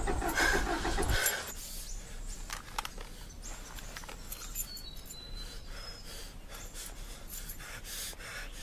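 A car's starter motor cranking the engine in a pulsing rhythm without it catching, then stopping about a second in. Faint outdoor background follows, with scattered clicks and a few thin high bird chirps.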